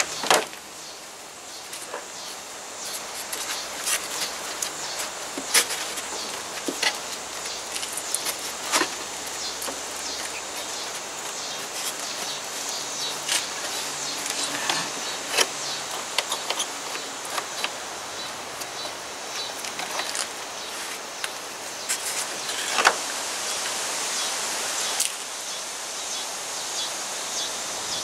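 Scattered clicks and knocks of a window air conditioner's plastic and styrofoam parts being handled and repositioned, over a steady high outdoor hiss.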